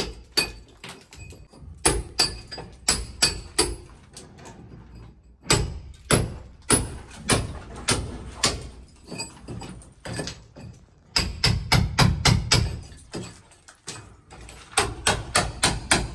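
Hammer blows on a brick wall, coming in runs of sharp strikes about two or three a second with short pauses between the runs.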